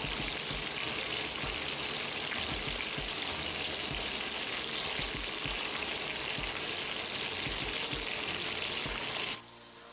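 Lightly browned chicken pieces shallow-frying in oil in a kadai: a steady sizzle with scattered small pops. It cuts off suddenly near the end.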